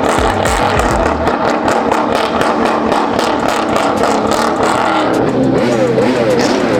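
Loud car engines revving at a street car meet. About five seconds in, one engine's pitch swings rapidly up and down as it is blipped hard.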